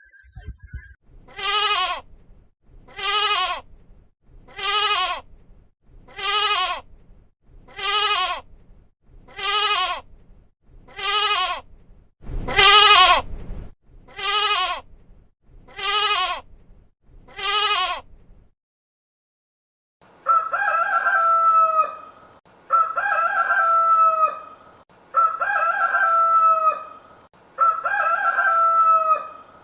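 Goat bleating: eleven short, wavering calls at an even pace, about one every second and a half. After a short silence a rooster crows, a long call repeated every couple of seconds, with its held note falling at the end.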